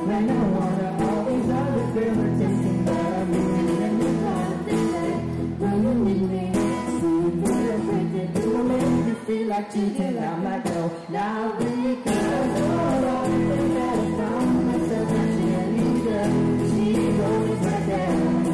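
Live acoustic duet: a woman singing into a handheld microphone over a strummed acoustic guitar. The guitar thins out for a few seconds past the middle, then the full strumming comes back in.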